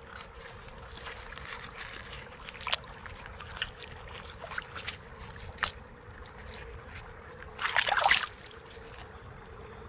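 Shallow creek water running over rocks, with scattered clicks and knocks as a rusty metal trap is handled in the water. About eight seconds in comes a short burst of splashing as the trap is swished through the current.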